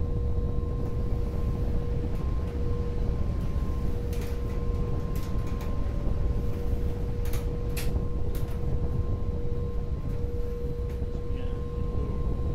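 A machine running: a steady low rumble with a steady mid-pitched hum, broken by a few light clicks about four and about seven to eight seconds in.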